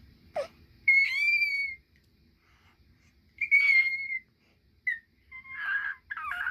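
A baby making high-pitched, whistle-like squeals: two long, steady high notes, each under a second, then a short chirp and a run of shorter, rougher squeals near the end.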